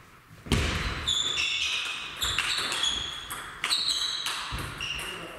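Table tennis rally: a celluloid-type plastic ball clicking back and forth off rubber bats and the table top, a sharp ping about twice a second, starting about half a second in, each hit ringing briefly in the hall's echo.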